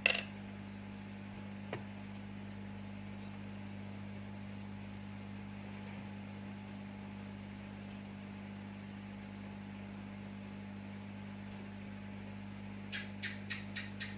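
Steady electrical mains hum, with a sharp click at the start and another a couple of seconds in. A quick run of light ticks, about five a second, comes near the end.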